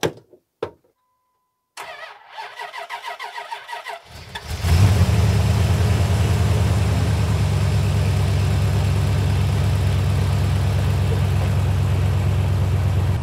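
First-generation Dodge Ram pickup cold-starting: about two seconds of rhythmic starter cranking, then the engine catches about four seconds in, flares briefly and settles into a loud steady idle.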